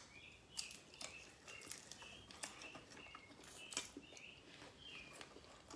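Faint eating sounds: scattered quiet mouth clicks and smacks while chewing, with short high chirps repeating about twice a second.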